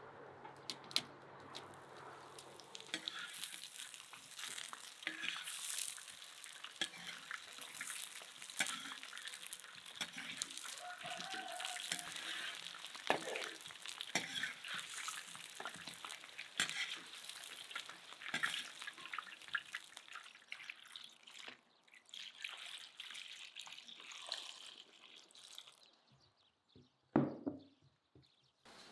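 Potato wedges frying in oil in a pan, with a steady sizzle and many crackling pops; a single louder thump near the end.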